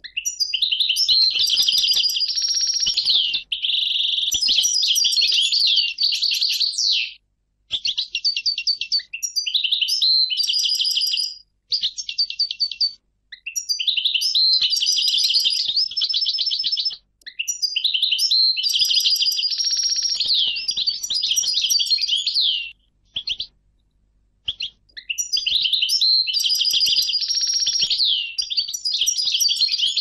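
European goldfinch singing in long phrases of rapid high notes and trills, each a few seconds long, with short pauses between them.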